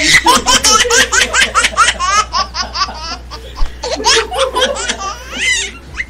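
Hearty, sustained laughter in quick repeated bursts of several a second, dipping briefly in the middle before a second run of laughing.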